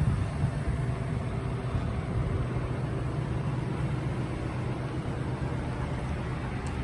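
Steady low mechanical hum over a rumbling background noise, unchanging throughout.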